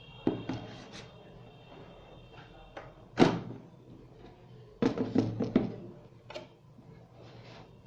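Knocks and clatter of a Hikvision DVR's metal case being handled as its cover is taken off, with a loud knock about three seconds in and a quick run of knocks near five seconds.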